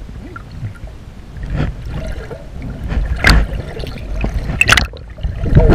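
Water sloshing and splashing as a person swims, heard from just under the surface, with a sharp surge about every second and a half as the arms stroke. The splashing gets louder near the end.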